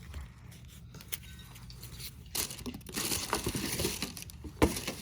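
Packaging crinkling and rustling as a newly bought pair of slides is unwrapped and handled, with one sharp tap near the end.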